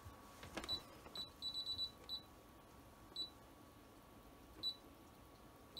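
Key beeps from a Brother embroidery and sewing machine's touchscreen as its buttons are tapped: short, high beeps, mostly single and spaced out, with a quick run of about six in a row about a second and a half in.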